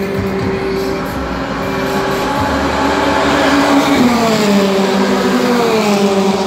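Formula Renault single-seater race car engine at high revs, its pitch rising as it approaches and then dropping sharply about four seconds in as it passes, with a second falling sweep near the end.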